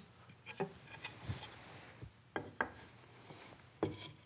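Hardwood workpieces handled and fitted together, a tenon being pushed into its mortise, giving a few faint, light wooden taps and rubs.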